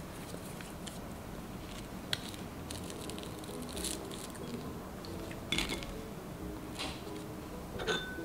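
Dry toast being torn apart by hand: faint crisp crackling with a few light clicks.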